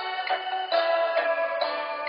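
Music played back from a cassette on a Sony TC-D5 portable stereo cassette recorder, heard during a test playback after repair. The notes change steadily.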